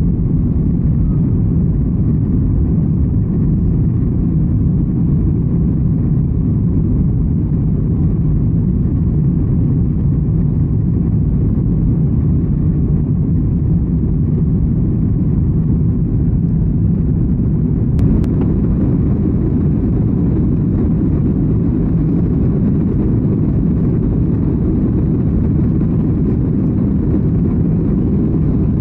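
Steady low rumble of a Boeing 737 MAX 8's CFM LEAP-1B engines and airflow at climb power, heard inside the cabin during the climb just after takeoff. A faint click comes about eighteen seconds in.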